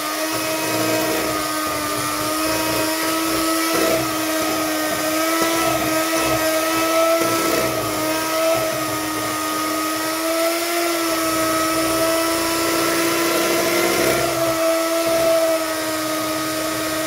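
Electric hand mixer running at a steady speed, its motor giving a constant whine, as the beaters cream butter and powdered sugar until soft and fluffy.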